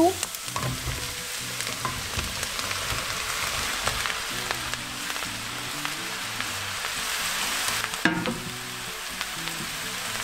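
Chopped onions and sliced mushrooms sizzling in hot olive oil in a wok, a steady frying hiss with small clicks and a sharper knock about eight seconds in.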